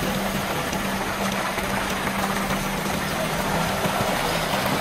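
Sinotruk concrete mixer truck running steadily, its engine held at a constant speed to turn the drum while wet concrete pours down the discharge chute with a continuous sliding rush.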